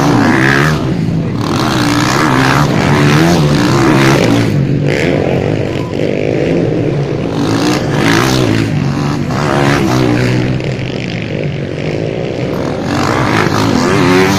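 Several motocross bikes revving hard at once, their engine notes rising and falling as the throttles open and close. A bike passes close about eight seconds in, and another near the end.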